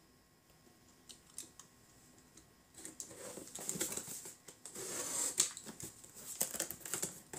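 A knife slitting the packing tape and cardboard of a shipping box: a few faint clicks, then about three seconds in a dense, scratchy run of cutting and rustling broken by sharp clicks.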